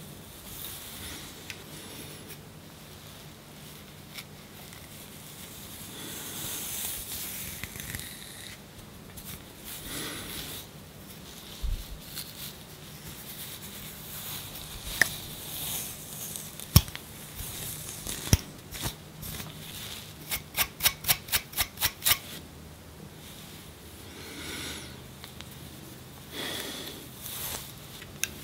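Close-up scratching and scraping at dandruff-flaked scalp skin to lift the flakes, in short high-pitched strokes with a few sharp clicks. About twenty seconds in comes a quick run of about ten clicks.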